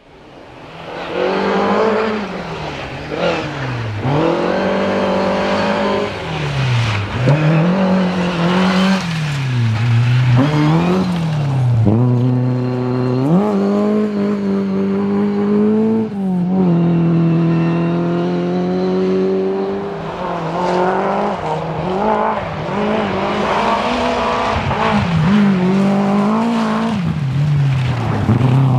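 Historic rally car engine revving hard, its pitch climbing and dropping back again and again as the driver works through the gears and lifts for corners.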